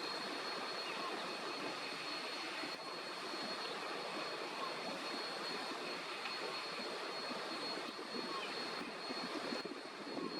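Steady outdoor background noise, an even rumble and hiss, with a faint thin high tone above it.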